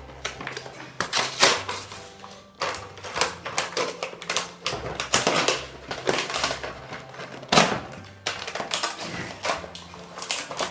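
Cardboard box of a Kinder Surprise egg being torn open by hand: repeated irregular ripping and crumpling of card, over background music.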